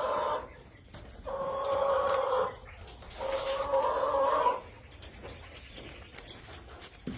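Salmon Faverolles chicken calling: three long, drawn-out calls about a second apart, the first already under way at the start.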